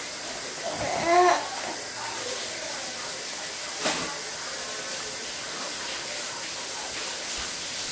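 A short high-pitched voice sound about a second in, then a single sharp click about four seconds in, over a steady background hiss.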